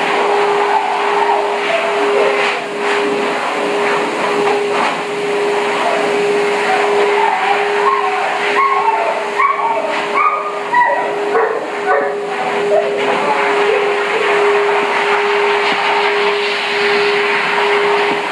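Pet grooming blower running with a steady hum and rush of air. About halfway through, a basset hound whines in short, high cries.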